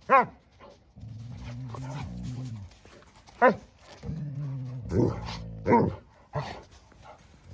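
Dogs at rough play, an Alaskan malamute and a puppy: long low play growls, about a second in and again around four seconds in, broken by several short, sharp barks.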